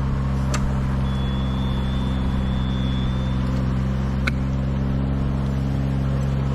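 Engine of a compact aerial lift running steadily at a constant speed, with two brief sharp clicks, about half a second in and after about four seconds.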